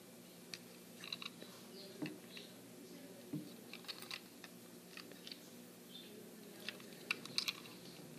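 Light clicks and taps from fingers handling a plastic toy train engine as it is turned over in the hands, coming irregularly with a brief flurry of louder clicks near the end, over a faint steady hum.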